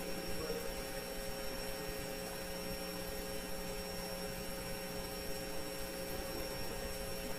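Steady electrical mains hum over a low hiss, with no other event.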